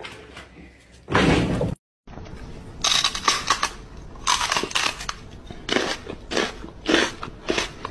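A short loud noisy burst about a second in, then, from about three seconds in, a quick irregular run of crunching, munching mouth noises from a person pretending to chew on a dog's paw.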